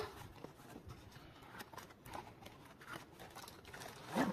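Cardboard knife box being opened by hand: a sharp snap as the sealed end flap is pulled loose, then faint scrapes and rustles of cardboard, with a louder rustle near the end.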